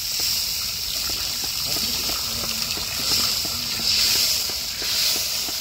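Water poured into a hot iron kadai of frying ground masala, hissing and sizzling as it boils up in steam; the hiss swells about three seconds in.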